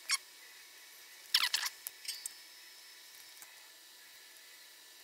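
Small hard parts of an electronics kit clicking and knocking as they are pushed into place by hand: one sharp click right at the start, a short rattle of clicks about a second and a half in, then a few lighter clicks.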